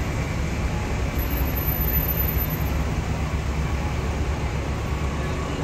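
Steady low rumble of vehicle noise with an even hiss over it, holding level throughout.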